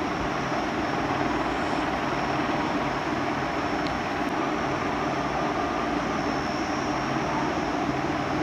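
Steady whir of an electric fan-driven appliance running in the room, an even rush of moving air over a low motor hum that does not change.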